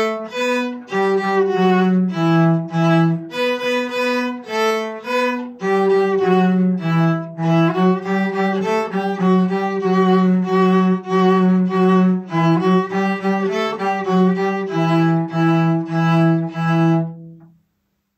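Viola and cello playing a simple piece with bowed, sustained notes at metronome tempo 100, stopping a little before the end.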